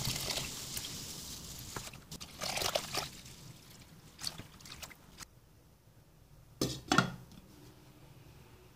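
Water poured in a stream into a stainless steel pot of raw white rice, with a steady splashing hiss for the first two to three seconds, then tailing off to scattered drips. Two quick knocks come about seven seconds in.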